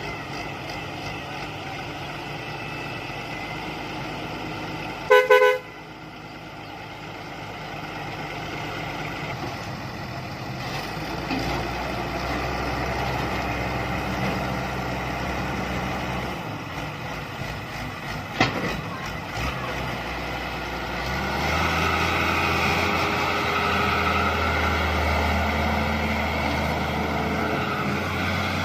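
John Deere 160 excavator's diesel engine running steadily, with a short, loud horn toot about five seconds in. Near the end the engine note rises and gets louder as it works under load.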